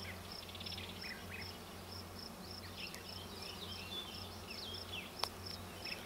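Honeybees on an open hive frame, a steady low hum of the colony. High chirps sound over it, and there is a single sharp click about five seconds in.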